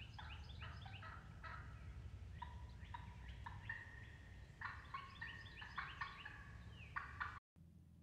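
Wild turkeys calling: a busy series of short, quick notes with a few longer held ones, cutting off abruptly near the end.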